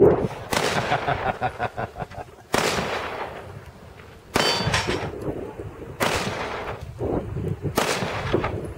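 Five pistol shots, spaced about two seconds apart, each followed by a short ringing decay; a metallic ring follows the third shot.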